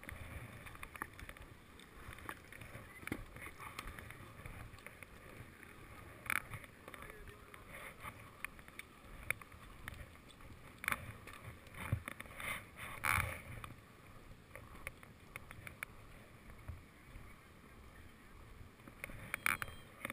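Low wind rumble and handling noise on a GoPro Hero 2 camera, with scattered knocks and clicks, the loudest a cluster about eleven to thirteen seconds in and another near the end.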